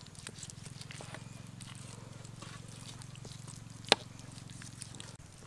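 Knife cutting raw chicken meat off the bone on a chopping board, with light clicks and scrapes and one sharp knock of the blade on the board a little before the end. A low steady hum runs underneath and stops near the end.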